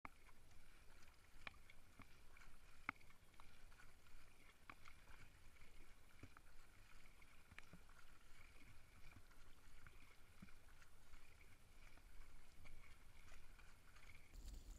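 Faint paddling of a racing kayak on flat water: soft drips and splashes from the paddle blades every second or two, over a faint steady high hum that stops near the end.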